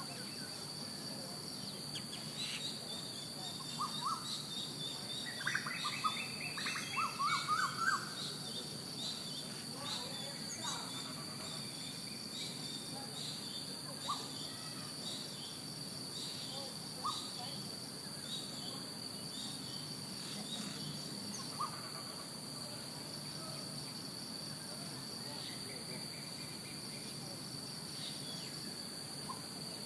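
Birds chirping in short, scattered calls, busiest in the first eight seconds or so, then only an occasional single chirp. A steady high-pitched insect drone runs underneath throughout.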